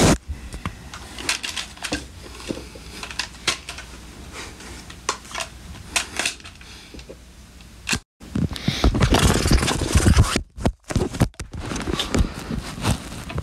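Scattered clicks, scrapes and rustling of things being handled close to the microphone. The sounds are sparse at first and louder and busier in the second half, broken by a few abrupt silent dropouts.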